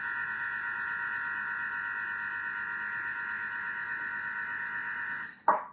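Thermomix motor and blades running at speed with a steady high whine while mixing a cream filling, cutting out about five seconds in, followed at once by a sharp knock.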